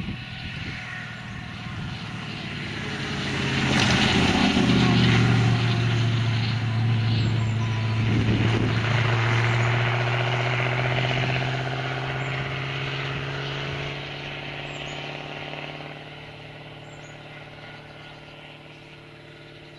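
Triumph TR7 V8 rally car's V8 engine running at steady revs as the car drives past and away; it grows loud about four seconds in, holds, then fades over the last few seconds.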